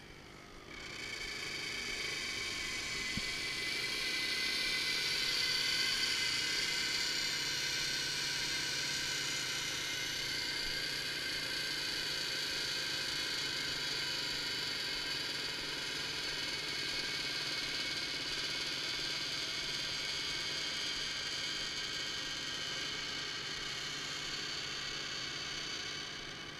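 REMS electric pipe bender running under load: its motor and reduction gearbox whine steadily as the 28 mm former turns and draws an aluminium tube round the bend. It starts about a second in and stops just before the end.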